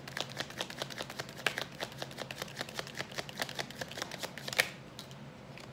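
A tarot deck being shuffled overhand, the cards flicking against each other in a quick run of soft clicks. Near the end comes one louder click, and then the shuffling stops.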